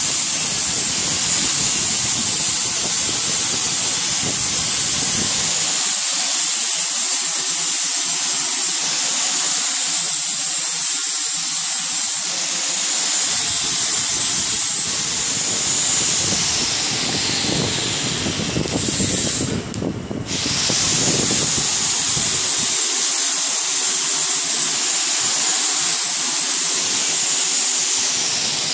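Turmeric powder pulverizer machine running: a loud, steady rushing hiss that briefly dips about two-thirds of the way through.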